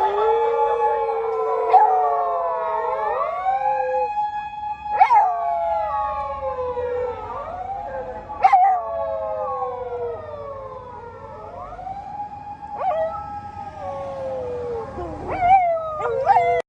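A police car siren wailing up and down while two dogs howl along with it, their long sliding howls overlapping the siren. A few brief sharp sounds cut in.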